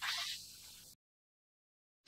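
A short rushing whoosh that fades away over about half a second, then dead digital silence from about a second in.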